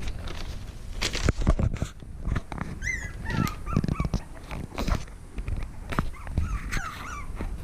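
Young puppies squeaking and whining in short, high little cries, about three seconds in and again near the end, among repeated knocks and rustling close to the microphone.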